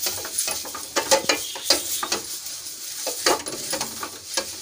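A cloth wiping oil across a hot non-stick dosa tawa: a run of irregular rubbing and scraping strokes.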